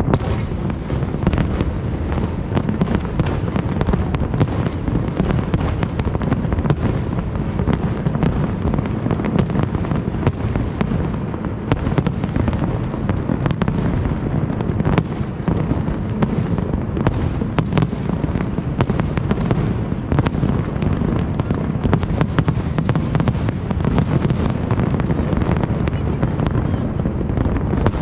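A big fireworks display: many aerial shells bursting at once, making a continuous rumble of booms with frequent sharp cracks over it, never pausing.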